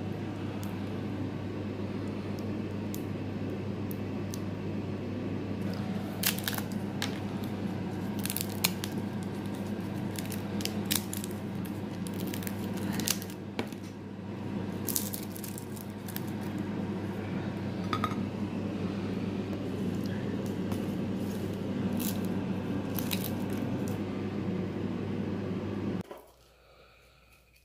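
Roasted chestnut shells being cracked and peeled by hand, with scattered crisp clicks and crackles of the brittle, charred shell breaking away, over a steady low hum. Both stop abruptly near the end.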